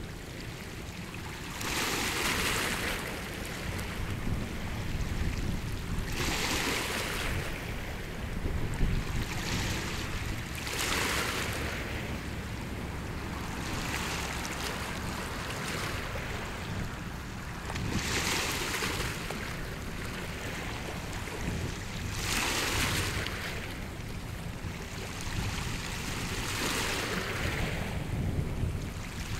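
Small waves washing in, a swell of wash every four to five seconds, over a steady low rumble of wind on the microphone.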